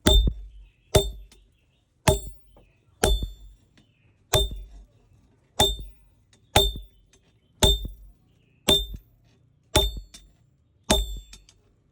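Blacksmith's hammer blows on an anvil, eleven strikes at about one a second, each with a short metallic ring.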